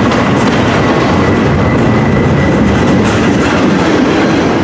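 Double-stack intermodal well cars rolling past close by: a loud, steady rumble of steel wheels on the rails.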